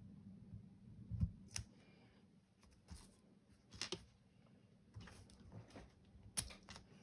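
Faint desk handling of planner stickers and washi tape: a soft thump about a second in, then a few scattered light clicks and rustles.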